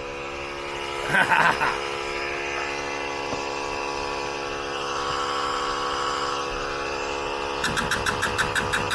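Cheap Harbor Freight air compressor running with a steady hum, with a brief louder noise about a second in. About seven and a half seconds in, the press's foot-pedal air-over-hydraulic pump starts cycling, a rapid even pulsing of about four strokes a second; the compressor is too small to drive it well.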